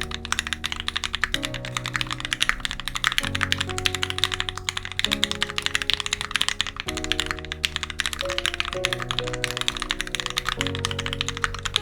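Fast, continuous typing on a Satisfaction75 custom mechanical keyboard: lubed Turquoise Tealios 67g linear switches on a brass plate with GMK keycaps, many keystrokes a second. Background music with slow sustained chords plays underneath.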